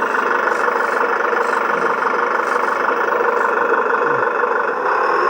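Simulated V8 engine idle sound running steadily from an RC crawler's onboard sound module through its small speaker.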